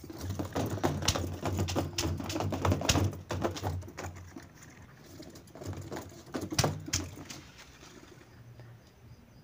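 Hands rubbing and squeezing an inflated clear latex balloon with smaller balloons inside it, giving a run of rubbery squeaks and crackles over a low drone. It is busiest in the first four seconds and again around six to seven seconds in, then dies down.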